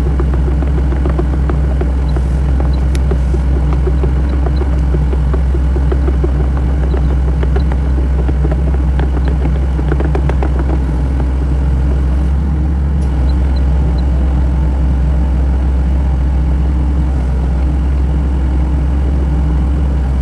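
SANY mini excavator's diesel engine running steadily under load. A run of clicks and knocks from the working machine comes through in the first half.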